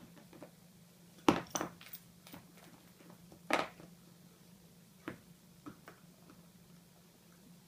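Standard poodle puppy chewing an elk antler slice: irregular hard clicks and knocks of the antler. The loudest burst comes about a second in and another at about three and a half seconds, with fainter ticks between.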